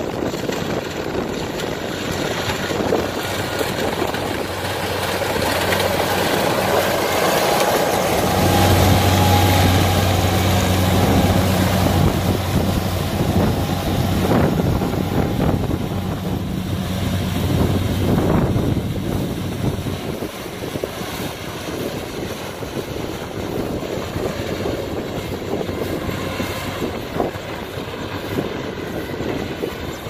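Kubota DC70 combine harvester's diesel engine and threshing machinery running steadily as it cuts rice: a low hum that swells as the machine comes close, about a third of the way in, and fades after about two thirds as it moves away.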